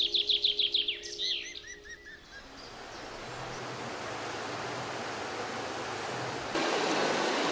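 Birds calling: a rapid trill of falling chirps, about seven a second, then a few separate arched whistles, over a steady low drone that fades away by about two seconds in. A rushing noise of running water then swells slowly and steps up louder near the end.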